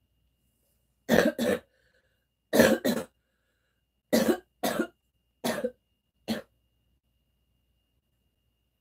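A person coughing: about eight hard coughs, first in two quick pairs and then singly, with pauses between them.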